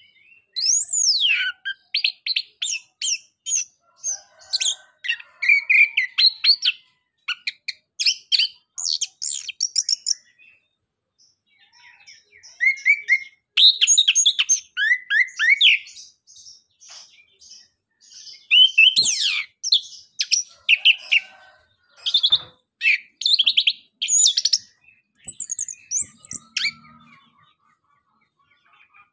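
Chestnut-capped thrush (anis kembang) singing a rapid, varied twittering song of high chirps and quick whistled glides, in runs broken by short pauses.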